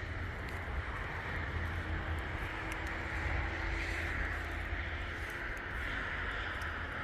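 Steady outdoor noise with a low rumble of wind buffeting the microphone.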